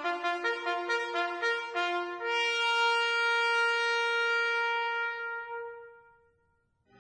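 Solo trumpet playing a quick phrase of notes, then one long held note that fades away into the hall's reverberation. The room's electronic acoustic enhancement system is set to a reverberation time of about 1.75 seconds, a chamber-music setting.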